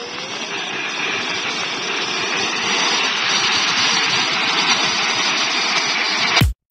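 Steady jet-engine rush from a large radio-controlled model C-17 transport plane, growing slightly louder, then cutting off abruptly near the end.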